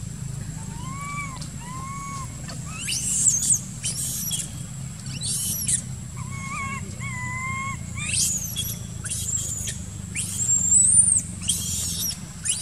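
Young macaques screaming: about ten short, shrill, high-pitched screams, loudest about three seconds in and again near the end, with quieter, lower, arched calls between them.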